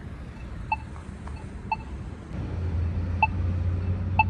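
Polara iNS accessible pedestrian signal push button sounding its locator tone: short beeps about once a second, the tone that lets blind pedestrians find the button. A low rumble of passing traffic grows from about halfway through.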